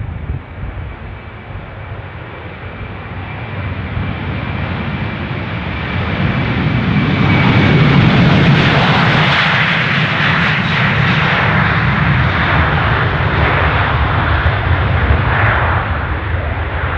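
Jet aircraft flying past, its engine noise swelling to its loudest about eight seconds in and staying loud after that. A thin high whine runs through the first seven seconds.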